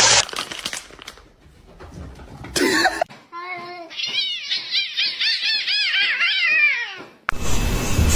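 A cat meowing in a quick run of short calls, each rising and falling in pitch, for about four seconds. Loud broad noise comes at the start and starts again near the end.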